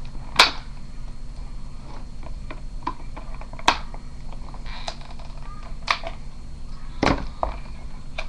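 Multitool packaging being worked open by hand: irregular clicks, snaps and crackles, with a few sharper snaps, over a steady low hum.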